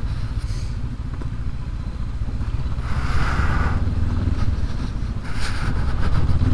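Honda CB500X's parallel-twin engine running steadily at low revs while riding a dirt road, with two brief rushes of noise about three and five seconds in and the engine beginning to pick up near the end.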